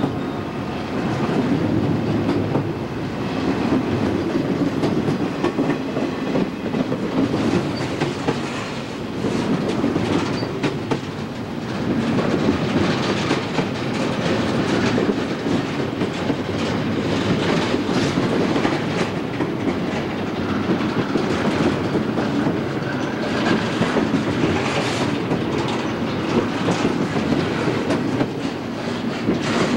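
Double-stack container well cars of a freight train rolling past close by: a steady rumble of steel wheels on rail with repeated clicking and clacking from the wheels crossing rail joints.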